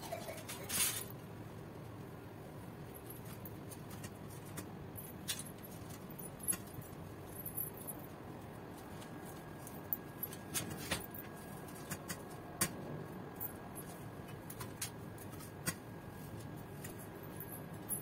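Handling noise as a heavy, damp blanket is lifted and spread over a clothes drying rack: scattered light clicks and taps over quiet room tone, the strongest about a second in.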